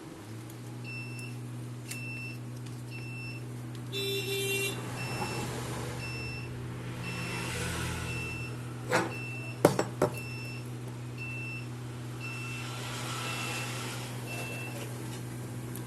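A steady electrical hum that comes on at the start, with a short high electronic beep repeating about twice a second. A brief buzzy tone sounds about four seconds in, and a few sharp clicks come near the middle.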